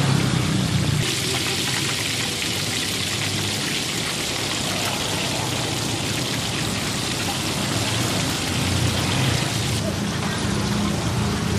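Hot oil sizzling steadily in a deep-frying pan. The hiss starts abruptly about a second in and cuts off suddenly near the end.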